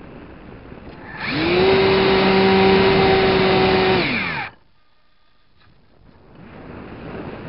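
Small RC plane's motor and propeller throttled up about a second in with a quickly rising whine, held at a steady high pitch for about three seconds, then winding down and cutting off. Near the end, wind rushes past the plane as it dives.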